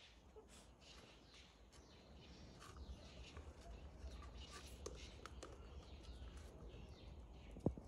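Faint outdoor ambience with scattered short bird chirps and a single sharp click near the end.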